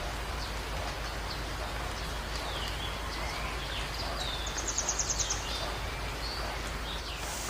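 Several small birds chirping and whistling in short calls, with a quick run of about ten rapid notes about five seconds in, over a steady background hiss.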